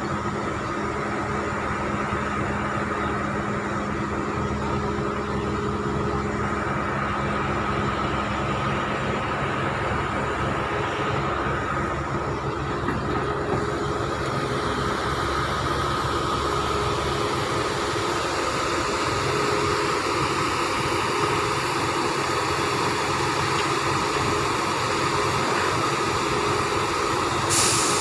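Steady drone of heavy diesel construction machinery running, with a constant high whine over it. There is a short sharp click near the end.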